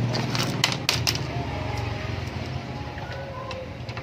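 A quick cluster of sharp clicks and knocks, about a second in, from plastic printer parts being handled and fitted back together. A steady low hum runs underneath and eases off.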